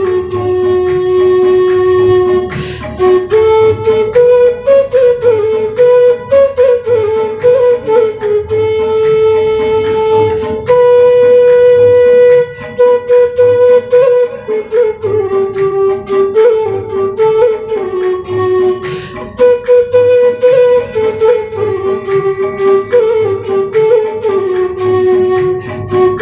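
Afghan tula, a side-blown bamboo flute, playing a slow melody: long held notes joined by quick ornamented turns.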